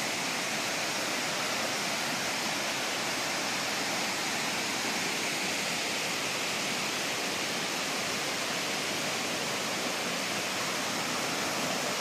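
Shallow stream water rushing over rock ledges and small cascades, a steady, even rush with no change in level.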